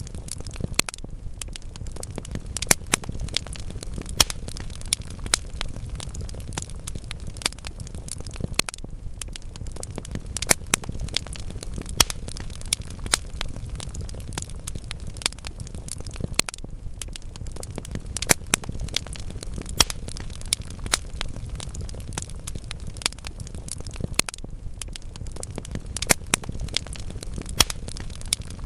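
Wood logs burning in a fireplace, crackling with frequent irregular sharp pops over a steady low rumble of the flames.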